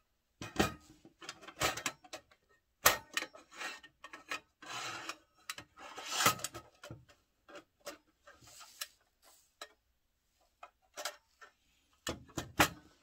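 Metal parts of a JTY alcohol stove being handled: a series of clicks, knocks and scrapes as its fuel drawer is slid out of the stove body, with a quieter spell a little past the middle.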